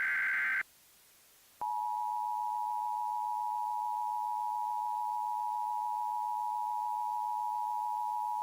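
The last burst of an Emergency Alert System SAME digital header, shrill data tones, cuts off just after the start. After a gap of about a second, the EAS attention signal comes on: a loud, steady two-note tone of 853 and 960 Hz.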